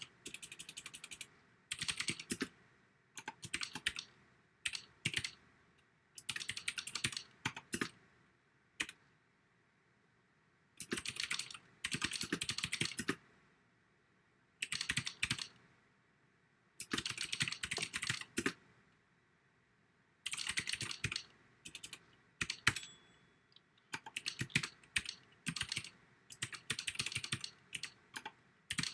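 Fast typing: clusters of sharp keystroke clicks in bursts of one to two seconds, with short pauses between bursts.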